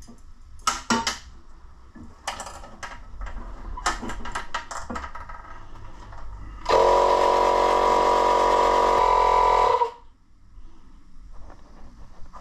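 Light clicks and knocks of handling, then a cordless Makita inflator pump runs steadily for about three seconds, pumping up the air charge of a boiler's expansion vessel. Its note shifts a little just before it cuts off.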